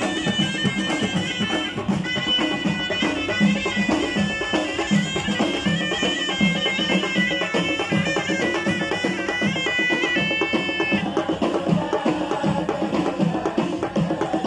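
Traditional Amazigh folk music: a shrill reed wind instrument plays a fast, ornamented melody over frame drums beating a steady rhythm about twice a second. The melody breaks off about eleven seconds in, leaving the drums.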